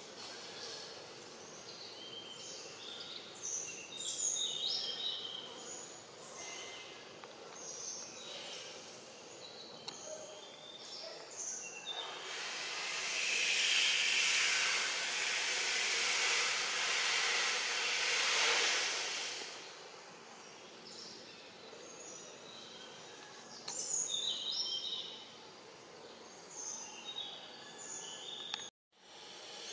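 Tropical forest ambience: scattered short bird chirps, and in the middle a loud, high, even buzzing hiss of cicadas that swells for about seven seconds and then fades. The sound drops out for a moment near the end.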